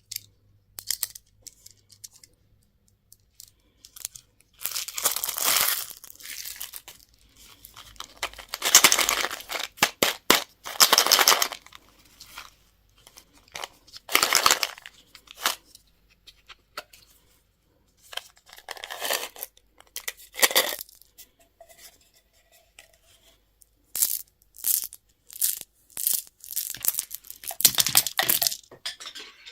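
Candy and toy packaging being torn open and crinkled by hand: repeated bursts of tearing, rustling wrapper with short clicks and crackles between them.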